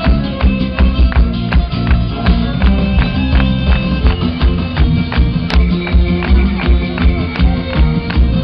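Live band playing an up-tempo tune through the stage PA, with guitar and horns over a fast, even beat of about two to three strokes a second.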